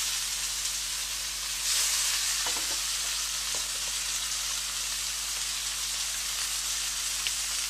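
Crab, vegetables and mushrooms sizzling as they stir-fry in a hot pan: a steady high sizzle that swells briefly about two seconds in, with a few light clicks.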